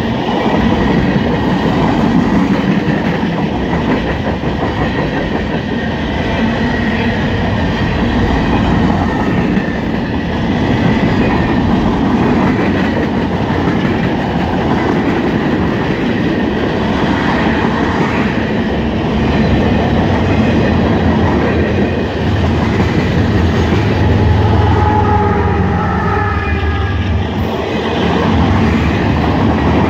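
Freight cars of a passing freight train rolling by close, their steel wheels clattering steadily over the rails. A deeper rumble swells near the end, with a faint tonal sound over it.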